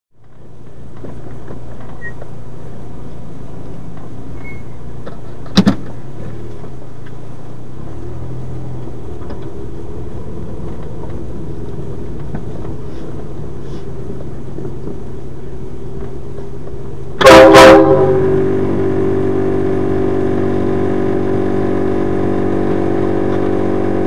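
Nathan Airchime K3 train horn fitted to a Scion xB, heard muffled from inside the closed cabin. About 17 seconds in it gives two quick loud blasts, then holds a steady multi-note chord. Before that there is only the low steady drone of the car moving slowly, with one sharp click about five and a half seconds in.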